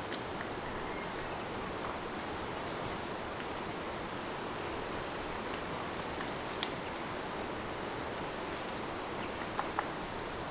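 Steady rain-sound ambience, an even hiss of falling rain, with high-pitched chirps coming and going over it and a few light ticks near the end.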